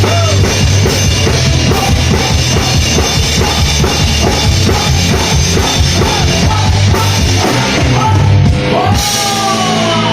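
Live rock band playing a fast, busy drum beat under electric guitar and bass, with a pitched line bending up and down over it. About nine seconds in the drums stop and a held chord rings on.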